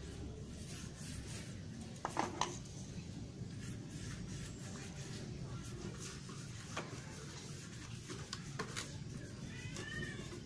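Toothbrush bristles brushing a paint remover and thinner mix onto a motorcycle helmet's painted shell, a soft scratchy brushing with occasional sharp clicks of the brush against the hard shell, over a low steady hum. A brief high call sounds near the end.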